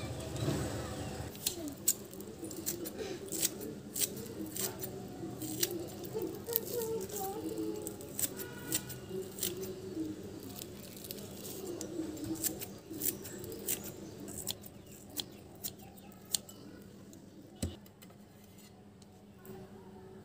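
Kitchen scissors snipping green onion stalks: irregular sharp snips, about one or two a second, thinning out near the end.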